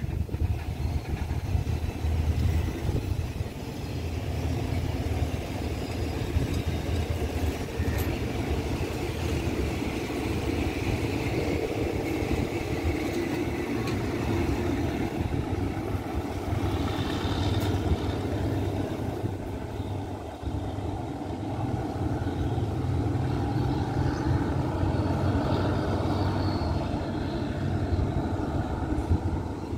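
Train coaches rolling along the rails, a steady rumble of wheels on track with a low hum under it.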